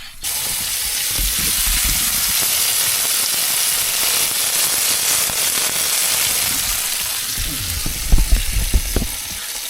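Smash burger patties sizzling in a hot frying pan. The sizzle starts suddenly and holds steady, easing a little near the end, with a few low knocks.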